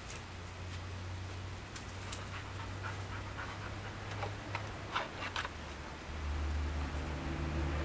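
A dog panting, with a few short, sharp rustling sounds in the middle. A low, steady rumble grows louder from about six seconds in.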